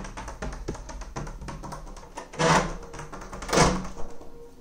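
Rapid light clicking, then two loud short clacks about a second apart from a wooden door's metal rim latch being unlocked.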